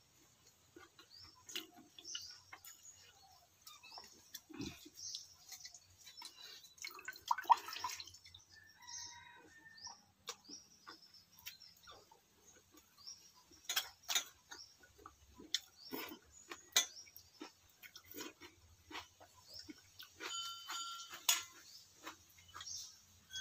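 Close eating sounds of a person eating pakhala, rice soaked in water, by hand: scattered wet mouth clicks, smacks and chewing, with a few sharper clicks.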